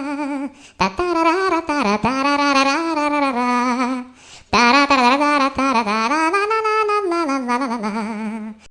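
A voice singing a comic wordless 'ta-ra-ra-ra' ringtone tune with a heavy wavering vibrato, in two phrases with a short break about four seconds in; it cuts off abruptly at the end.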